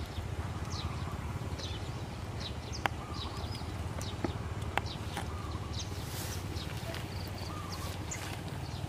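Small birds chirping in short, scattered calls over a steady low hum, with two sharp clicks, one about three seconds in and one near five seconds.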